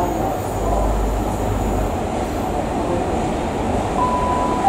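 GWR Class 43 HST power car's MTU V16 diesel engine running with a steady low rumble as the train draws slowly into the platform. About four seconds in, the first note of a station public-address chime sounds, a single steady tone.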